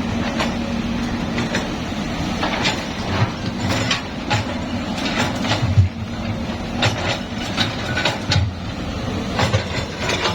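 Heavy construction machine running steadily, with irregular metallic clanks and knocks over its engine hum.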